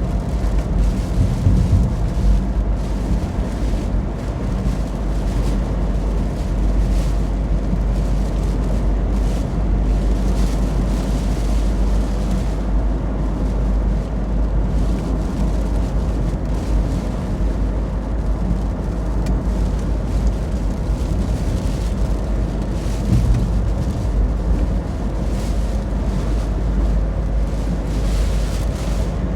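Hurricane wind buffeting the microphone: a steady low rumble that swells briefly now and then.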